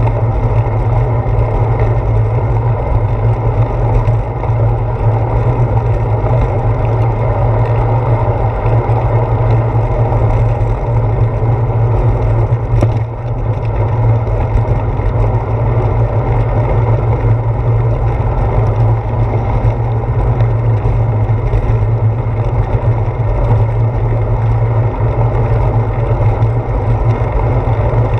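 Steady low rumble of wind and road noise picked up by a handlebar-mounted GoPro Hero 4 while the bicycle rolls along a paved path. The noise dips briefly about halfway through.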